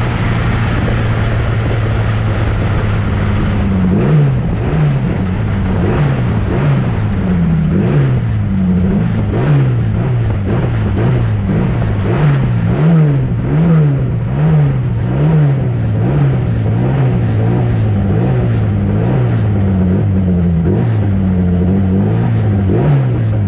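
1960s prototype racing car engines: a steady drone for the first few seconds, then from about four seconds in the pitch rises and falls over and over, about once a second, as the engines rev up and back down.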